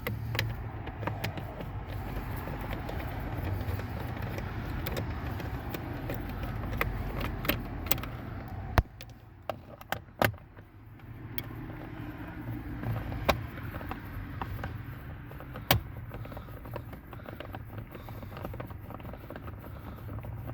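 Scattered clicks and knocks of a socket and hand tools working the bolts and plastic trim panel under a car's dashboard, over a steady low hum.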